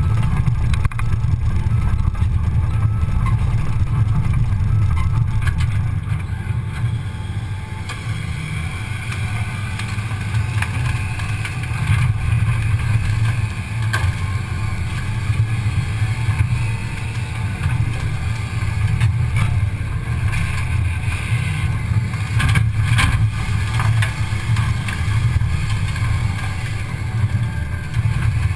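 Cat 320 excavator's diesel engine running steadily under load, heard from a camera mounted on the machine's front, with a higher whine joining about eight seconds in and a few sharp knocks near the end.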